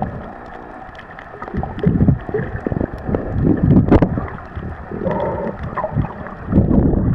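Muffled underwater rumble and sloshing of water moving around a submerged microphone, swelling and fading every second or two, with a couple of sharp clicks.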